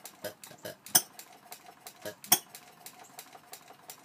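Quarter-scale model IHC Famous hopper-cooled hit-and-miss engine running: a light, quick ticking of its moving parts, broken by two sharp firing pops about a second and a half apart as it fires and then coasts.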